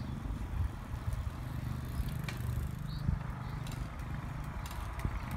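Several bicycles riding past on a tarmac road, with a few faint clicks over a steady low rumble.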